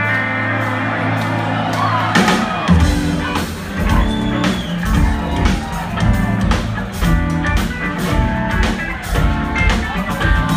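Rock band playing live in a concert hall, heard from within the audience: a held chord for the first couple of seconds, then the full band comes in with a steady drum and bass beat under keyboards.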